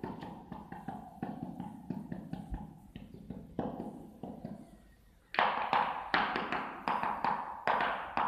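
Small hand tool working mortar along a tile joint in quick repeated strokes against tile and cement. The strokes are light at first, then become louder and regular, about two a second, a little after five seconds in.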